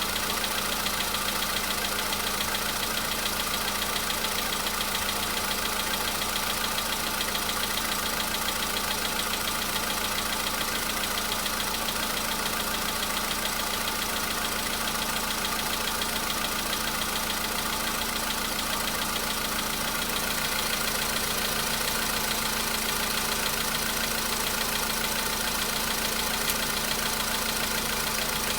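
Volkswagen Polo Sedan's 1.6 CFNA four-cylinder petrol engine idling steadily during warm-up after a cold start, with a light even tapping. The owner hears that cold-start knock and puts it down to the hydraulic lifters.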